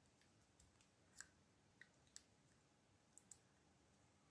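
Near silence with scattered faint clicks from a thin strip of plastic-bottle plastic being handled and flexed between the fingers.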